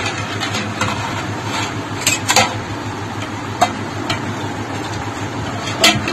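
Metal spoon stirring juice in a large aluminium pot, with a few sharp clinks of metal on the pot's side over a steady low hum.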